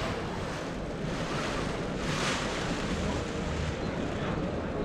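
Steady background noise of a busy exhibition hall, visitors' crowd hubbub and hall ventilation, with a brief louder rustling rush about two seconds in.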